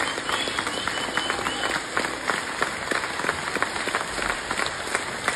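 Concert audience applauding after a song, many hands clapping steadily.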